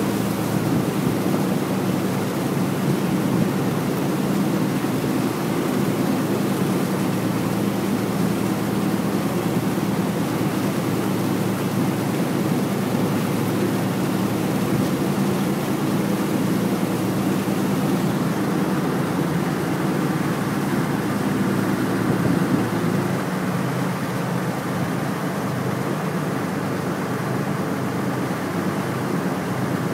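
Diesel engines of a CityCat catamaran ferry running steadily under way: a constant low drone heard from the deck over a hiss of wind and water. The drone eases slightly about three-quarters of the way through.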